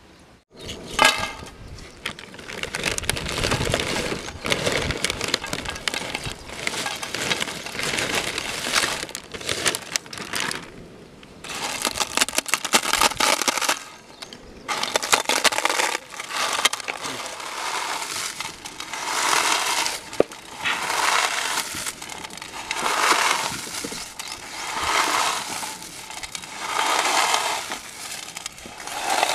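Potato chips being crushed by hand against a metal plate: dense, crackling crunches. In the second half they come as regular squeezes about every second and a half.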